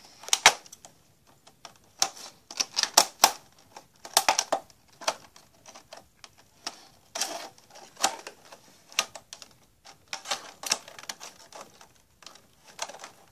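Scissors snipping at a cardboard doll box: an irregular run of sharp cuts and clicks, several coming in quick clusters.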